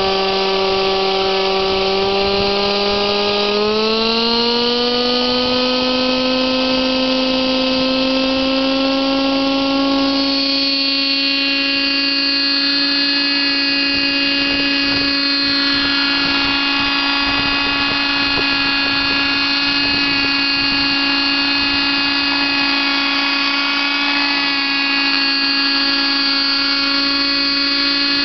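Kyosho Concept 30 nitro RC helicopter's two-stroke glow engine running as a steady high-pitched whine. About four seconds in, the pitch rises as it spools up the rotor. It then holds steady as the helicopter lifts off and hovers.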